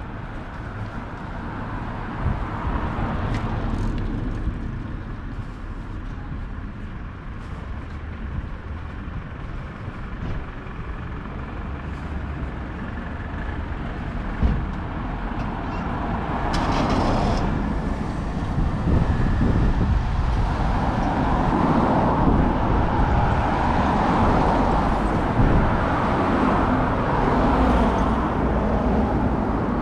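Road traffic on a city street: a steady rumble of passing vehicles that swells about halfway through and stays loud, with a short hiss a little after the swell begins.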